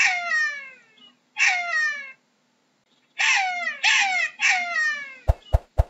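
Jackal yelping: five high, wailing calls, each falling in pitch, in two groups with about a second's pause between. Three sharp clicks near the end.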